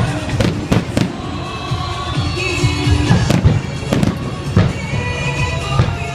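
Fireworks going off, a series of irregularly spaced sharp bangs, with music playing underneath.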